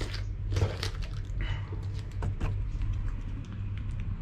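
Plastic food packaging and a small plastic sauce sachet being handled, with short crinkles and rustles, over a steady low hum.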